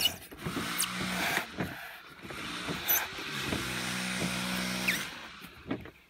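A knife sawing down through a thick block of closed-cell foam, the foam squeaking and creaking as the blade drags through it. There are two longer drawn strokes, one about half a second in and a longer one about three and a half seconds in, with short squeaks between.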